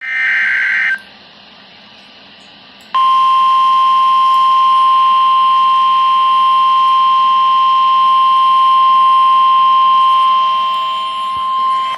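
Emergency alert broadcast signals: a short screeching burst of SAME header data, a two-second pause, then a single loud, steady alert tone near 1 kHz (the weather radio 1050 Hz warning tone) held for about nine seconds, signalling a severe thunderstorm warning.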